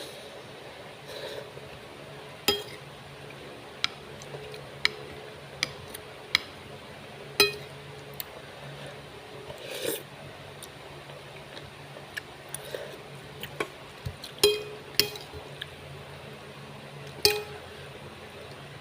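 Eating utensils clinking against a dish, about a dozen short, sharp clinks at irregular intervals, each ringing briefly.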